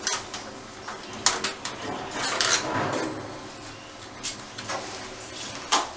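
Clattering and knocks from a desktop laser cutter's lid and parts being handled, with sharp knocks a little after a second in, midway, and near the end.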